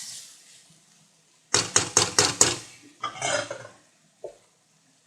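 A utensil stirring food in a cooking pan, scraping and knocking against the pan: a quick run of about five strokes, then a longer scrape about a second later.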